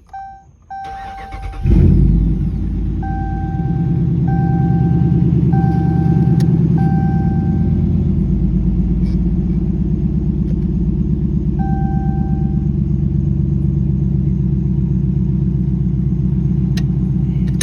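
A Dodge Charger R/T's 5.7-litre Hemi V8 started by its newly replaced starter. It fires about two seconds in and settles into a steady idle, showing the new starter works. A dashboard warning chime beeps at the start and several more times over the idle.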